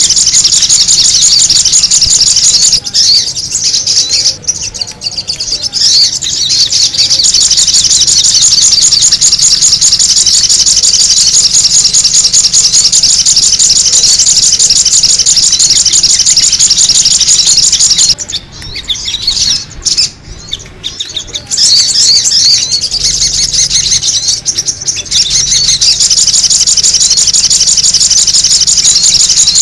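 Sogon bird song played as a bird lure: a loud, continuous stream of rapid, high-pitched chattering calls, broken by short pauses about 3 to 7 seconds in and again around 18 to 22 seconds in.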